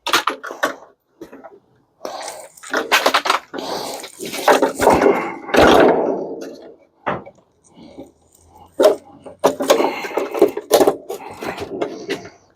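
Irregular clattering, scraping and knocking of metal parts and panels being handled while an appliance is taken apart for scrap, with a longer scraping stretch a few seconds in.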